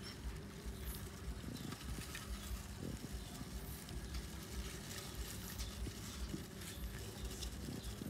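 Baby hamsters scrabbling and rustling in wood shavings inside a plastic box: a faint, continuous crackling rustle with small scattered clicks.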